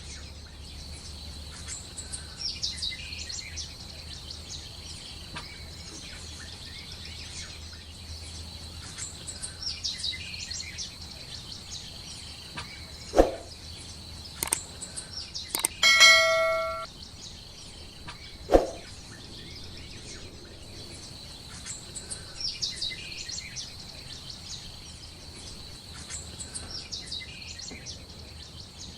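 Bird chirps in short bursts every few seconds over a steady high whine. Near the middle come two sharp knocks with a bell-like ding ringing briefly between them.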